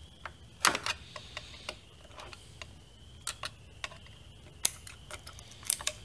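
Sharp, irregular clicks and ticks of a utility knife blade prying and picking at the perforated plastic knockout cover on the front panel of a Hypertherm Powermax 65 plasma cutter. The loudest clicks come about two-thirds of a second in and again near the end.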